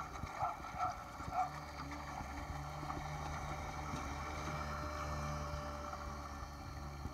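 TurboSurf motorized surfboard running steadily under way, its motor humming over water rushing along the board.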